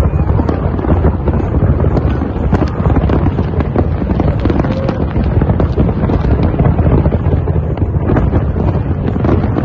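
Fireworks display: many shells bursting in quick succession, a steady mass of bangs and crackle, with wind buffeting the microphone.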